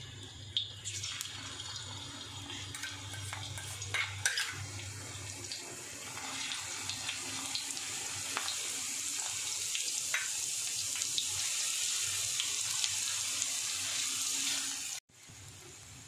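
Crushed garlic sizzling in hot oil in a kadhai, with a few clicks in the first seconds. The sizzle gets louder after about six seconds and cuts off abruptly near the end.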